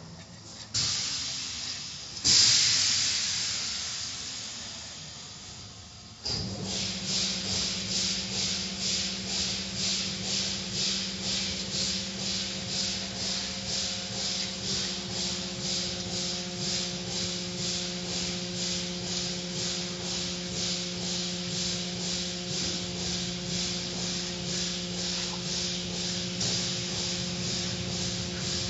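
Automatic car wash at work: two sudden bursts of hissing spray that die away, then about six seconds in a motor starts up with a steady hum while the cloth strips and water swish over the car in a rhythm about twice a second.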